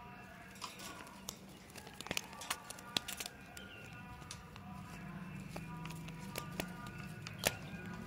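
Rose-ringed parakeets bathing in a water dish and flapping their wet wings, a quick irregular run of sharp splashes and feather flicks. Background music with steady held tones plays under it.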